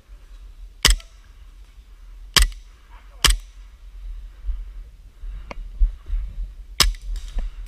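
APS XTP Shark CO2 gas-blowback airsoft pistol firing single shots: four sharp, loud cracks spread irregularly over about six seconds, with a few fainter pops in between.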